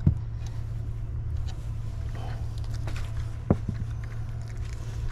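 A boat motor running steadily as a low hum, with a sharp knock right at the start and another about three and a half seconds in.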